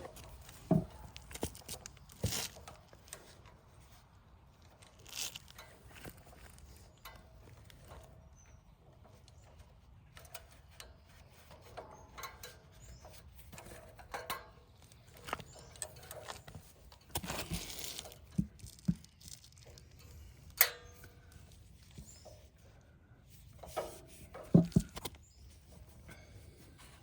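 Intermittent clicks, light knocks and rustling from hands working with tools and small metal parts. A longer scraping rustle comes about two-thirds of the way through, and a few sharper knocks come near the end.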